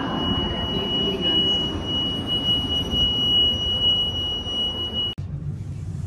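A steady, high-pitched electronic tone, like a buzzer, over the low rumble of a train standing at the platform, heard at the open door of a Railjet coach. The tone cuts off suddenly about five seconds in, leaving a lower, steadier hum.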